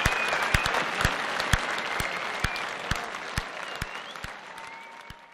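Large outdoor crowd applauding, dense clapping with a few high whistles, fading out over the last two seconds.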